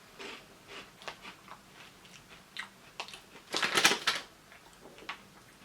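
Someone biting and chewing crunchy dried-pea snacks: scattered short crackles, with a dense burst of crunching about three and a half seconds in.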